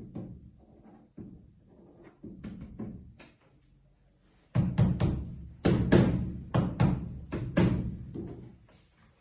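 Music with deep drum hits in a steady rhythm, much louder from about four and a half seconds in, then dying away near the end.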